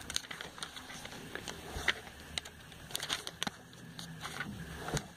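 Glossy paper catalogue pages being turned and riffled by hand: irregular light rustles and flicks of paper.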